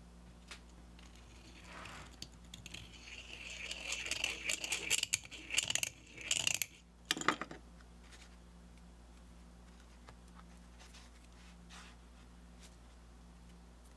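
Hand deburring tool's swivel blade scraping around the edge of the bored hole in a mild-steel part, beveling off the sharp edge in a run of short scraping strokes that start about two seconds in and stop a little past halfway.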